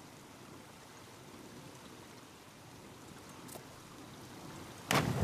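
Low, steady hiss of pool water and hall ambience, then near the end a sudden loud splash as a diver enters the water from the 10 m platform.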